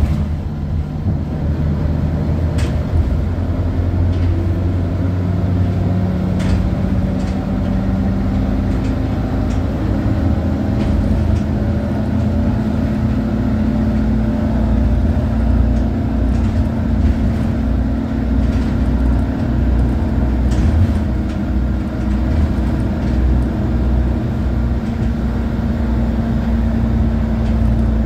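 Interior of a ZAZ city bus on the move: steady engine and drivetrain hum with road noise and a few light rattles. The engine note rises about ten seconds in and then holds steady.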